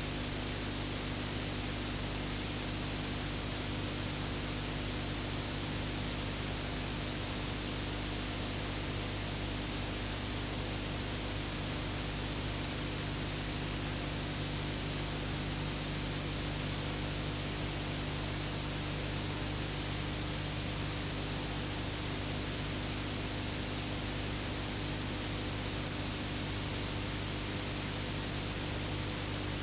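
Steady hiss and static with a low, many-toned hum underneath and no other sound: the noise of an old film's transfer, with no soundtrack on it.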